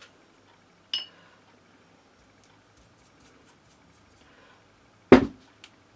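Glass bottle handled while being varnished: a light glass clink about a second in, then a louder, duller knock near the end.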